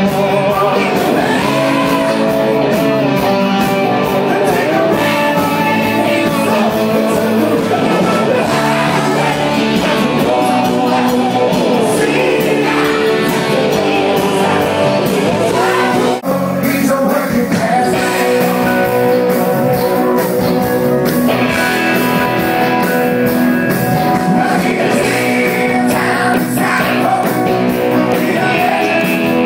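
Live rock band playing loud electric guitars and drums under sung lead vocals, recorded from within the crowd. The music breaks off for a moment about 16 seconds in, then carries on.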